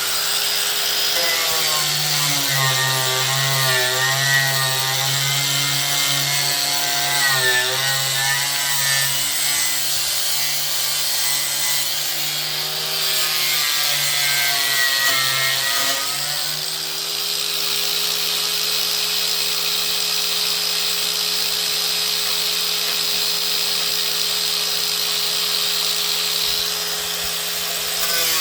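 Handheld electric grinder with a paint and rust stripping disc running. Its motor pitch sags and wavers for most of the first half while the disc grinds on a rusty car bumper, then holds steady and a little higher.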